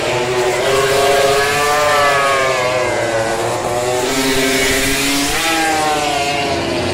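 Moto3 racing motorcycles' 250 cc single-cylinder four-stroke engines running hard on the track, several engine notes overlapping and rising and falling in pitch.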